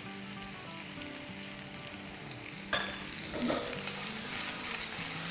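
Chicken meatballs sizzling in oil in a frying pan as they brown, with a short knock, as of the spoon against the pan, about three seconds in.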